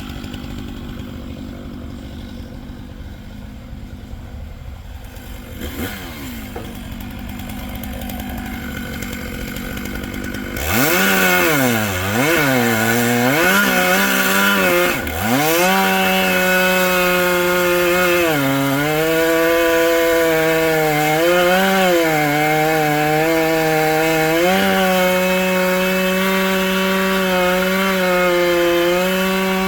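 Gas chainsaw cutting through a fallen bur oak trunk, quieter for the first ten seconds or so, then at full throttle with a sudden jump in loudness. Its pitch dips and recovers several times as the chain loads up in the cut.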